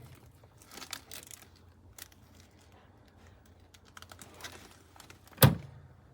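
Bamboo roll-top bread box being handled: faint scattered clicks and rustling, then one sharp knock about five and a half seconds in.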